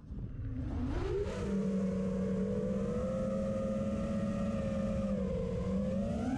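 Brushless motors of a 5-inch FPV racing quadcopter (DYS SE2205 2300KV) whining with heavy wind and prop-wash rumble. The pitch drops as the throttle is chopped at the start, climbs back about a second in, holds fairly level, then rises and falls again near the end.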